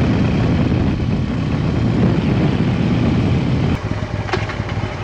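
Harley-Davidson Road King's V-twin engine running while the motorcycle is ridden, with wind rushing over the microphone. About four seconds in the engine note drops as the throttle eases off, and a few sharp clicks follow.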